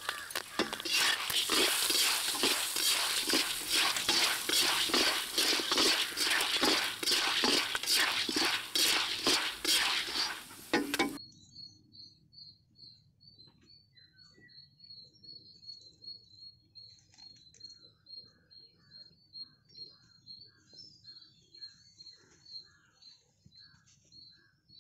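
Maize kernels scraped and rattled around a hot iron kadai with a metal ladle, a dense run of rapid metallic strikes. About eleven seconds in this cuts off to a much quieter track with a high chirp repeating about three times a second and faint scattered ticks.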